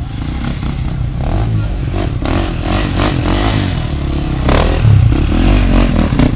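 Enduro motorcycle engines running, with a low rumble and clattering; the sound gets louder about four and a half seconds in.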